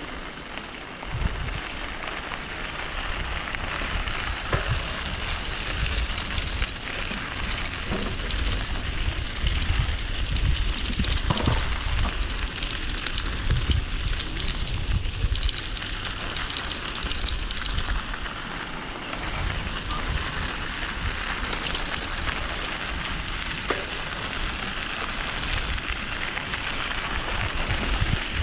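Wind buffeting the microphone in uneven gusts, with a crackling hiss over it.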